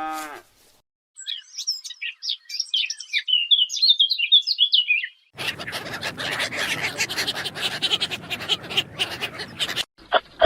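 A small bird singing a fast run of high twittering chirps for about four seconds. It is followed by about four and a half seconds of dense crackling noise made of many short sounds, and a few sharp clicks near the end.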